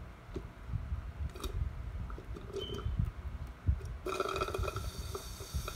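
A person drinking from a cup, with small swallowing and liquid sounds and a drawn-out gurgling slurp from about four seconds in. Low, uneven buffeting of air on the microphone runs underneath.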